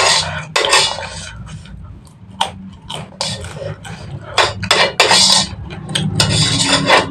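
A metal spoon scraping and clinking against the inside of a nonstick wok, scooping up the last bits of noodles, in a quick run of short scrapes and clicks.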